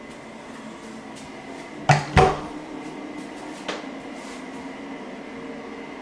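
Two sharp knocks in quick succession, then a lighter click, from a door being opened or shut, over a steady low room hum.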